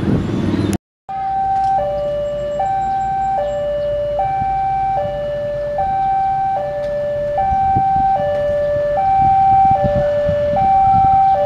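A railway level-crossing warning alarm sounding an electronic two-tone signal, a higher and a lower tone alternating about every 0.8 s, the warning that a train is approaching. The first second holds rumbling road noise before a brief cut.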